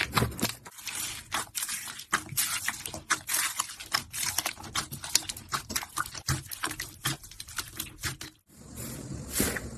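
Slime being squeezed and pressed by hand: a dense run of sticky clicks and wet pops, broken by a brief gap near the end.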